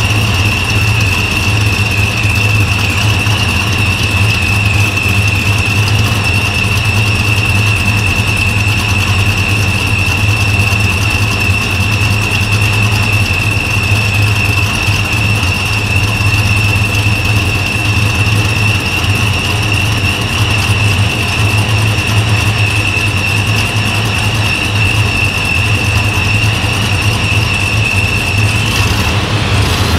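Freshly built 5.3-litre L83 V8 of a 2017 Chevrolet Silverado, fitted with a ProCharger D-1X supercharger and a Brian Tooley Racing supercharger cam, idling steadily on its first run. A steady high whine sits over the engine note and fades near the end.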